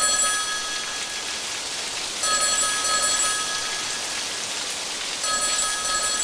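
Steady rain-like hiss, with a bell-like ringing of several high pitches that sounds at even spacing about every three seconds, each ring lasting about a second.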